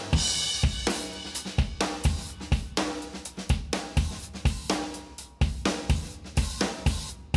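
Background rock music: a drum kit playing a steady beat with cymbals and hi-hat.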